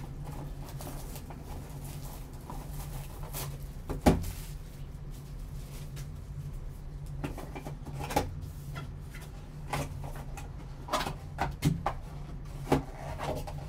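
Cardboard trading-card box handled by gloved hands: set down with a sharp knock about four seconds in, then a run of short clicks and taps near the end as the box is opened. A steady low hum lies underneath.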